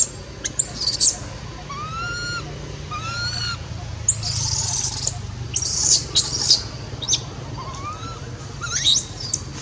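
Baby monkey crying in distress: a string of about nine high-pitched calls, some shrill arching screeches and some lower, wavering whimpers that rise and fall.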